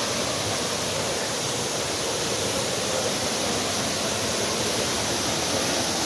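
Waterfall at close range: a steady, dense rush of water pouring down a rock face.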